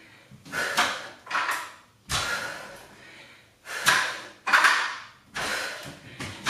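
A person breathing hard in short, forceful exhales while doing dumbbell manmakers, with a few thuds from the dumbbells being set down and feet landing on a rubber floor mat. One sharp knock comes about two seconds in.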